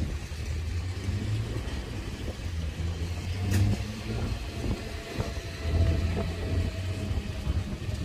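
Copenhagen S-train electric multiple unit running past at close range: a steady low rumble of wheels on the rails that swells twice, with one sharp click about three and a half seconds in.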